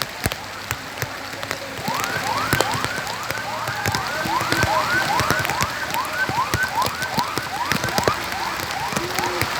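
An electronic siren giving a quick rising whoop over and over, about two to three times a second, starting about two seconds in. Rain patters and clicks underneath it.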